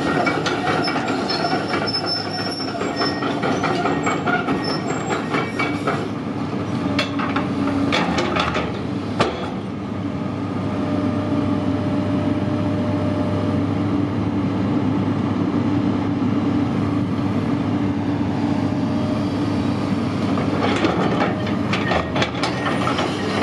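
Komatsu PC210LC-8 crawler excavator running its diesel engine while travelling on its steel tracks, the track links clanking and clicking rapidly. The clatter drops away for a stretch in the middle, leaving the steady engine, then picks up again near the end.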